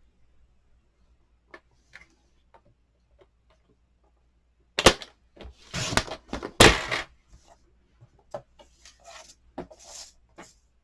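Cardstock being cut to size and handled at a craft desk: a few light taps, then a cluster of loud clacks with brief scraping slides about five seconds in, followed by lighter knocks.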